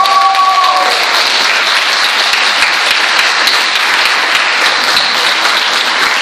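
An audience clapping together, a dense and steady applause.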